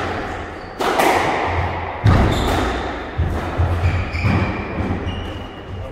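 A squash rally: the ball cracks sharply off rackets and walls several times and rings on in the echoing court. Footsteps thud on the wooden floor, with short high squeaks from the players' shoes.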